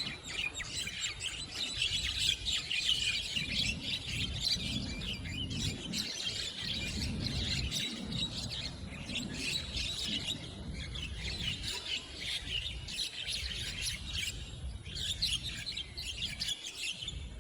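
A group of Javan mynas calling in rapid, overlapping chatter and squawks during a squabble, with brief lulls, over a low rumble.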